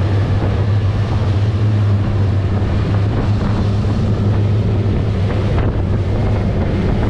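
Outboard motors running at cruising speed with a steady low drone, under heavy wind buffeting the microphone and the rush of the churning wake.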